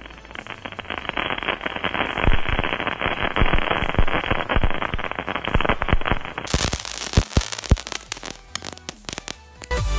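Sand-buried fireworks erupting with a dense crackle of rapid pops and sparks. After about six and a half seconds it thins to scattered sharp cracks. Electronic music comes in just before the end.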